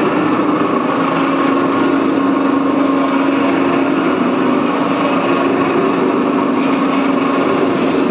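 Crane motor running steadily with a steady hum while the crane holds a granite block on wire ropes.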